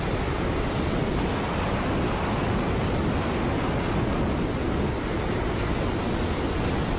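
Steady rushing noise of air in high-speed flight, with no distinct engine tone.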